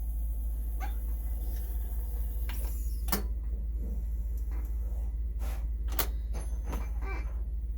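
Steady low hum with a scattering of sharp clicks and knocks, about seven of them, the strongest about three seconds in and around six seconds in.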